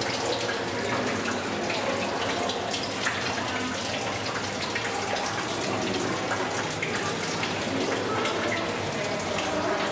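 Steady rush of moving water from an aquarium's circulation and filtration, with faint scattered ticks and splashes.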